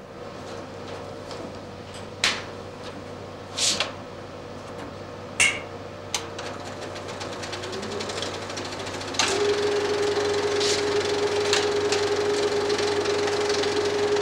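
Cinemeccanica Victoria 8 35 mm film projector running, its intermittent mechanism making a fast, even mechanical clatter, with a few sharp clicks in the first half. From about eight seconds in, a whine rises and then holds as a steady hum, and the whole sound gets louder as the machine comes up to speed.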